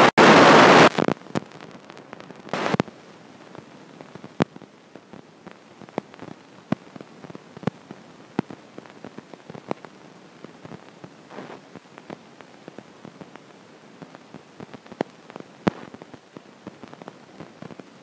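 A loud burst of hiss in the first second and a shorter one a couple of seconds in. After that come irregular sharp clicks and taps, roughly one or two a second, over a faint steady hiss.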